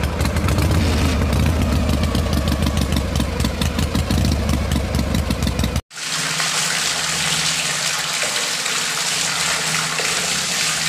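A miniature engine running a belt-driven mini mill. For about six seconds it makes a steady, rhythmic, engine-like chugging; after a sudden cut it gives way to a steadier hum with a hiss.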